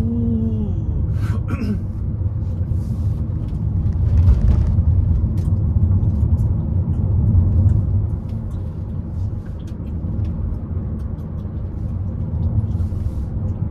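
Car driving along a road: a steady low rumble of engine and tyre noise, with scattered faint ticks and knocks.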